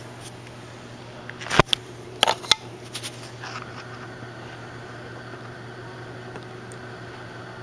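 Steady hum of a small electric fan in a small room, with a few sharp clicks and knocks between about one and a half and two and a half seconds in.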